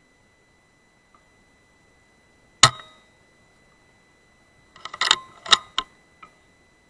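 A single shot from a .22 Weihrauch HW100S PCP air rifle, a sharp report about two and a half seconds in. About two seconds later comes a quick cluster of metallic clicks as the sidelever is cycled to load the next pellet. A faint steady high tone runs underneath.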